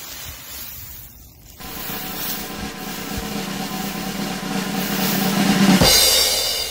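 A motor running steadily under a rustling, grinding noise, growing louder and then stopping suddenly about six seconds in.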